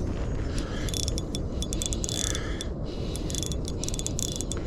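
Small 1000-size spinning reel ticking in short bursts of rapid clicks as a hooked fish is played and wound in.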